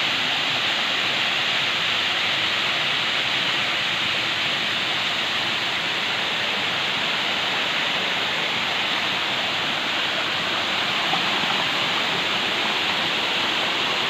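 Water of a small creek cascade pouring over rocks: a steady rush.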